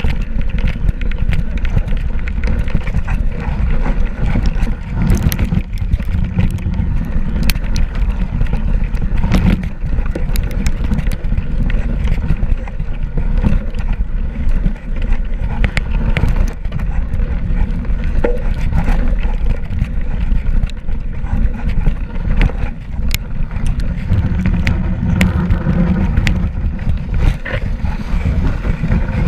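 Mountain bike rolling fast down a snowy, rutted trail: a continuous low rumble of the knobby tyre and wind on the microphone, with frequent sharp clicks and rattles as the bike goes over bumps.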